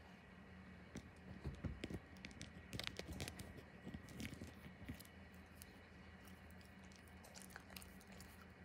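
Raccoon mouthing and chewing on an object, giving faint small clicks and crunches. They come thickly in the first half and thin out near the end.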